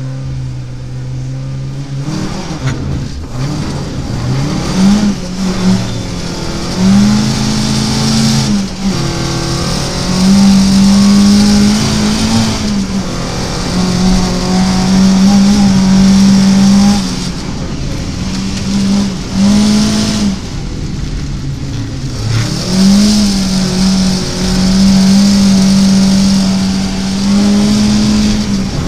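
Rally car's engine heard from inside the cabin: held at steady revs for about two seconds at the stage start, then accelerating hard, its pitch climbing and breaking off again and again as the driver shifts gears and lifts for corners on a snowy stage. A hiss of tyres on snow runs under the engine.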